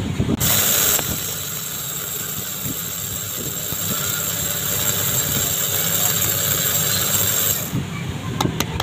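Small electric spice grinder running with its lid button held down, its blades coarsely grinding coriander seeds: it starts about half a second in, runs steadily for about seven seconds and stops, followed by a couple of sharp clicks near the end.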